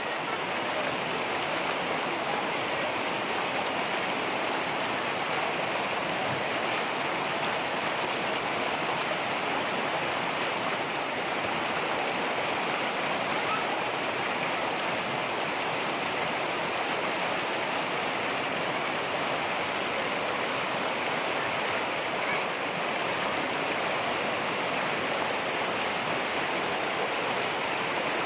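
Water rushing over rocks in a stream, a steady, even rush with no change in level.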